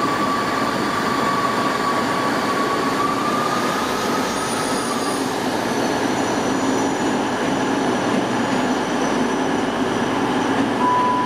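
South Western Railway Class 159 diesel multiple unit running away over curved track and points. A steady high wheel squeal sounds for about the first five seconds, and a short squeal comes back near the end.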